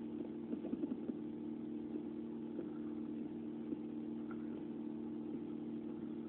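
A steady low background hum, several even tones held throughout, with a few faint clicks about half a second to a second in.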